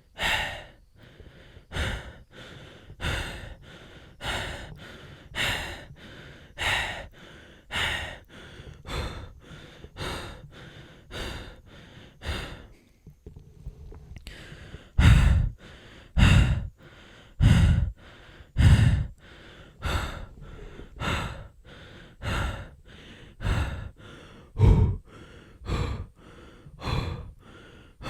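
A man breathing heavily and out of breath, panting in and out in a steady rhythm of about one breath a second. About halfway there is a short pause, then a few louder, deeper breaths before the quicker panting resumes.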